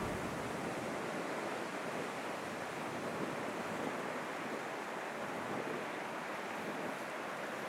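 Steady rushing background noise, even and unbroken, with no distinct sounds standing out.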